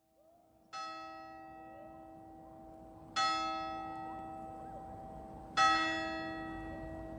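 A single large bell tolling three times, about two and a half seconds apart, each stroke ringing on and slowly fading; the first stroke is softer than the others.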